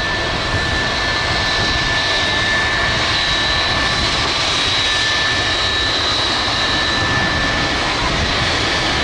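Boeing 757 turbofan engines running steadily: a continuous jet rush with a high whine held at a fixed pitch.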